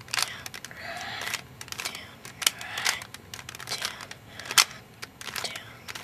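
Plastic Rubik's cube layers being turned by hand: repeated clicking and rattling as the faces snap round, with two sharper clicks about two and a half and four and a half seconds in.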